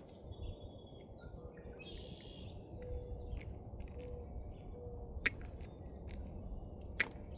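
Two sharp snips, about five and seven seconds in, typical of side cutters cutting through the wires of the old burnt 4-pin connector on a UV sterilizer lamp. Birds chirp in the background.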